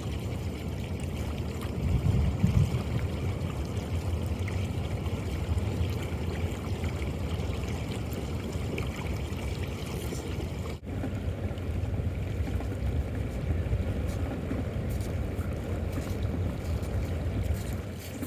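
Wind buffeting the microphone in a steady low rumble, with ocean surf washing behind it; a louder gust comes about two seconds in.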